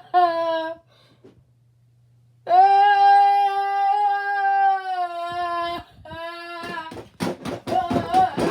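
A high-pitched voice sings a few short notes, then holds one long steady note for about three seconds, letting it sag slightly at the end. About seven seconds in, a run of quick, short vocal sounds follows.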